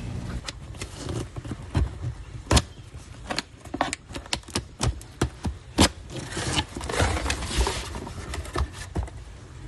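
Things being handled: a string of sharp clicks and knocks, with a stretch of scraping and rustling about seven seconds in.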